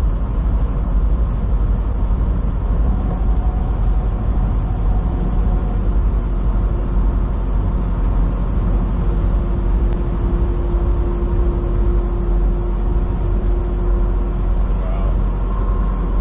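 Steady drone of a semi truck's engine and road noise heard from inside the cab while cruising, dominated by a deep low rumble, with a faint steady whine holding for several seconds midway.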